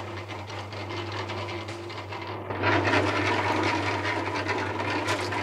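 Small drum mortar mixer turning, its blades churning a batch of mortar with a dense scraping, rattling noise. It comes in loud about two and a half seconds in, over a steady low hum.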